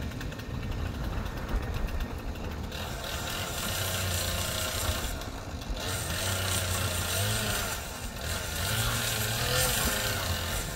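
A vehicle engine running, its low hum shifting up and down in pitch.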